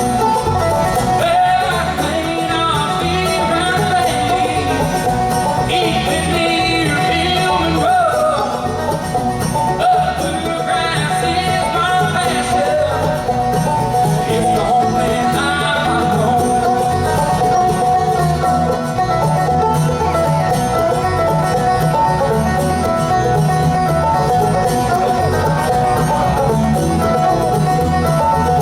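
Bluegrass band playing with banjo and guitar; voices sing for roughly the first half, then the instruments carry on alone.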